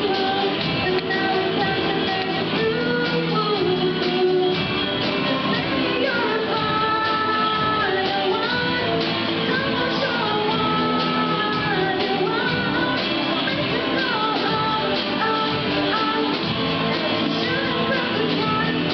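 Live pop-rock band performing: a female lead singer singing over electric guitar, keyboard and drums.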